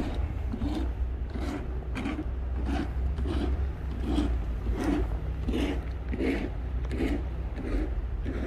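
Footsteps crunching in fresh snow at a steady walking pace, about three steps every two seconds, over a steady low rumble.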